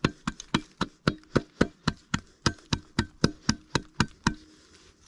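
A tool hacking repeatedly at a wooden tree stump: a quick, even run of about twenty sharp knocks, four to five a second, that stops about a second before the end.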